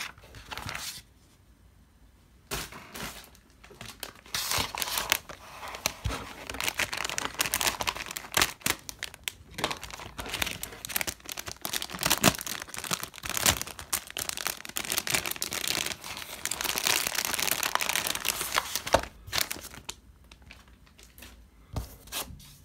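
Clear plastic packaging being crinkled and pulled open by hand: a dense run of crackling and rustling with sharp clicks, starting a couple of seconds in and dying down near the end.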